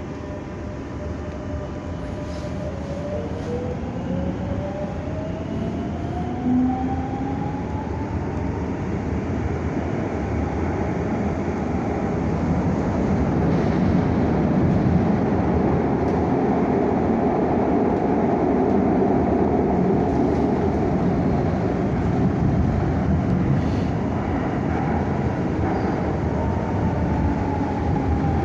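Madrid Metro Line 7 train heard from inside the front car as it pulls away: the electric traction motors whine, rising in pitch over the first several seconds as it accelerates. The wheel and rolling noise then grows louder and holds steady as it runs into the tunnel, with a falling whine near the end.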